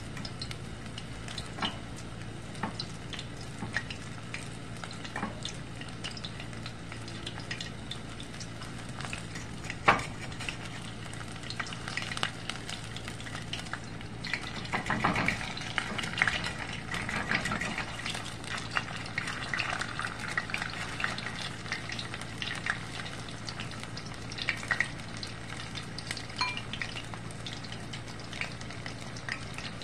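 Battered chicken pieces deep-frying in a skillet of hot vegetable oil: a steady sizzle full of small crackling pops, with one sharp tap about ten seconds in and a louder stretch of sizzling around the middle.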